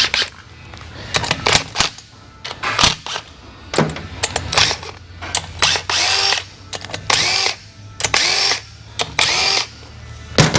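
A cordless drill backing out engine fasteners in a series of short bursts of about half a second each, the motor whirring up and winding down each time, with clicks of tools and parts between.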